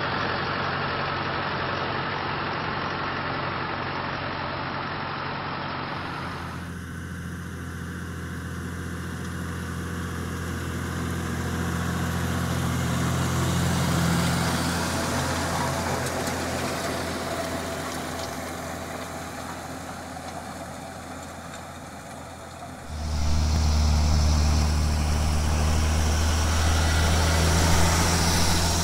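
Farm tractor engines running in the field, in three clips that cut hard one to the next: first a tractor pulling a crop sprayer, then a tractor working a seed drill over cloddy ground, its engine growing louder to about 14 seconds in and then fading. About 23 seconds in, a louder, deeper engine cuts in: a John Deere tractor pulling a fertilizer spreader.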